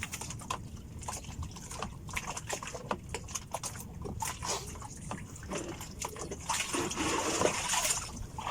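Water splashing and trickling, with many small scattered clicks. A louder rush of splashing comes in near the end.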